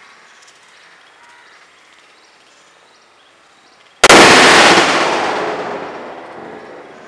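A firecracker 'bomb' explodes with a single loud bang about four seconds in, dying away over about three seconds.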